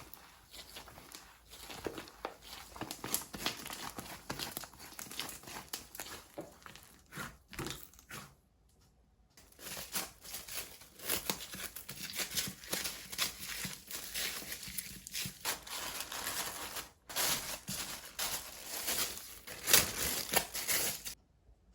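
Hands squishing and stretching clay-mixed slime, giving a dense run of small crackling, sticky pops. It pauses for about a second around eight seconds in, breaks briefly again around seventeen seconds, and stops just before the end.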